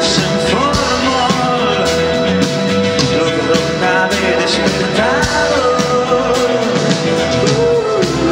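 Live rock band playing: regular drum hits and guitars under a steady held chord, with a sliding, wavering lead melody on top.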